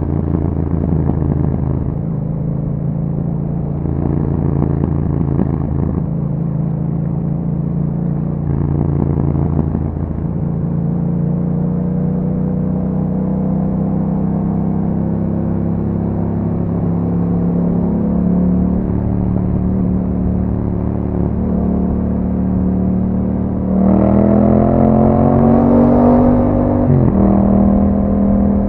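Yamaha MT-07's parallel-twin engine through an Akrapovic exhaust, heard from the moving bike. The engine note wavers through the opening seconds, then climbs slowly at steady throttle. About three-quarters through, the throttle opens: the note gets louder and rises, then drops sharply about three seconds later, as at a gear change or the throttle closing, and runs on steadily.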